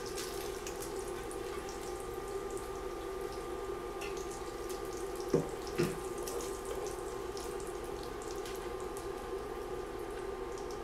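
Bacon fat sizzling and crackling steadily in an enameled cast-iron Dutch oven as cooked bacon pieces are scooped out with a spoon. Two sharp knocks come about halfway through.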